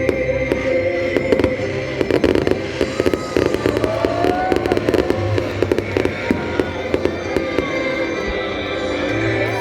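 Fireworks going off in a dense, irregular string of pops and crackles, over music with long held notes.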